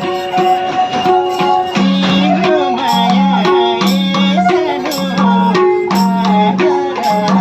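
Nepali folk music: a bowed sarangi melody with a wavering pitch over a steady, repeating madal drum rhythm of pitched low strokes and sharp slaps.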